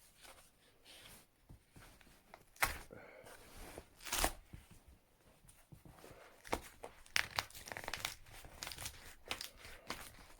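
Packaging on a newly arrived vinyl LP box set being torn and crinkled open by hand: irregular rips and crackles, two sharp ones about two and a half and four seconds in, then a busier run of rustling and tearing in the last few seconds.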